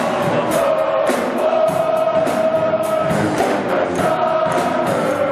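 Music: a long held chord over regular drum hits.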